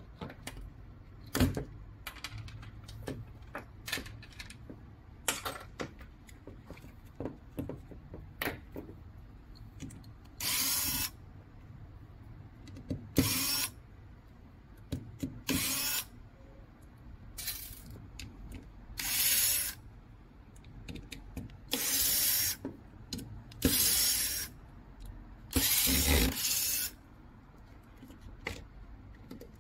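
Plastic RC car parts and metal hand tools being handled on a table: scattered clicks and knocks. In the second half come about eight short, harsh bursts of noise, each lasting about half a second to a second.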